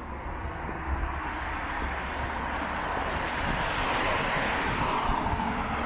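A car driving past on the road alongside, its tyre and engine noise swelling as it comes up from behind and passes, loudest about four to five seconds in.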